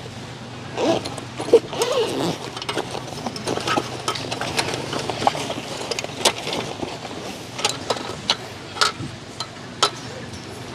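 Irregular light clicks, knocks and clinks of hard objects being handled, several in quick succession, over a low steady hum.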